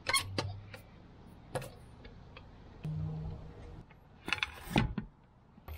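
Metal clinks and clanks of a four-way cross lug wrench on the lug nuts of a Mercedes Sprinter's steel wheel, taking off nuts that have already been loosened. The knocks are spaced out, with a quick cluster of them a little past the middle.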